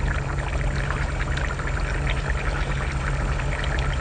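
Steady low hum under a bubbling, crackling hiss from a steaming seafood pot, with small wet clicks of chewing.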